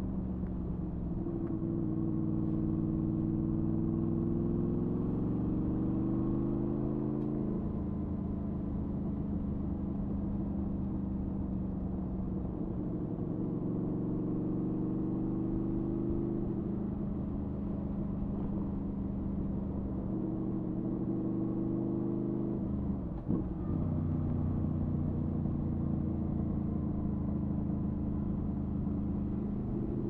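2007 Honda VFR800 Interceptor's V4 engine and exhaust under way on a ride. Its note climbs with the throttle and falls back several times, with a brief drop in the note about two-thirds of the way through.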